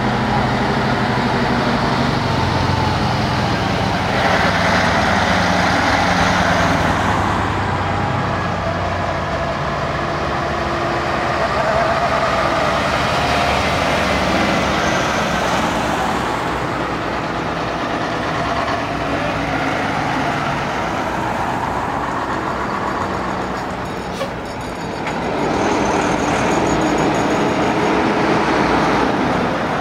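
Heavy trucks' diesel engines running as the trucks drive past one after another, the sound swelling and easing with each pass.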